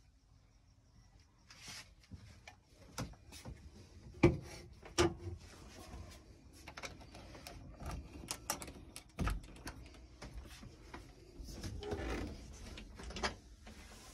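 A camper van's side door and its latch being handled: scattered clicks, knocks and rattles, with two sharp knocks about four and five seconds in and another near nine seconds.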